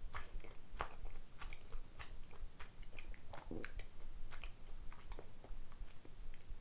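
Close chewing of rice-flour dango dumplings: a run of quick, irregular wet mouth clicks and bites.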